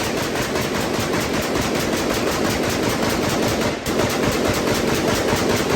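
Zastava ZPAP M92 AK pistol in 7.62 fired as fast as the trigger can be pulled, emptying the magazine in a long string of rapid, evenly spaced shots with a brief break about four seconds in.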